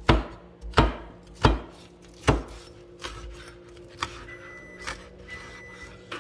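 Cleaver chopping green onions on a wooden cutting board: four sharp knocks of the blade on the board in the first two and a half seconds, then a few lighter taps.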